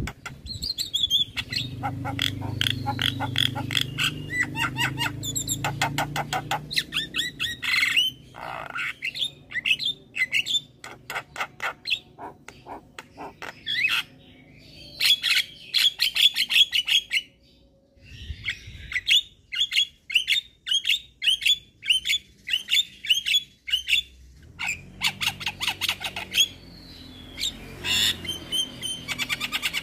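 Javan myna (jalak kebo) singing vigorously: long runs of rapid, repeated chattering notes, squawks and whistles, with a brief pause about halfway through.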